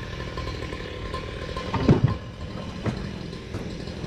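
Bobcat E26 mini excavator's diesel engine running steadily, with two loud clunks about two and three seconds in as the machine works.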